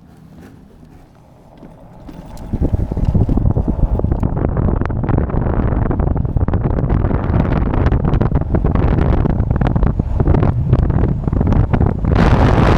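Wind buffeting the microphone of a moving electric bike, coming in suddenly about two and a half seconds in and staying loud and rumbling after that.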